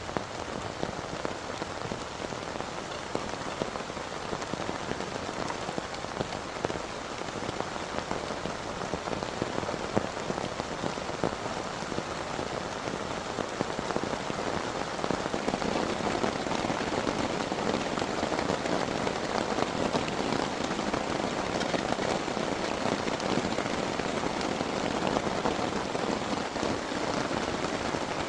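Heavy rain falling steadily as a dense patter of drops, growing louder about halfway through.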